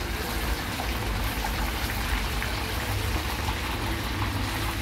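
Chicken frying in the hot oil of a commercial deep fryer: a steady sizzling hiss with many small crackling pops, over a low hum.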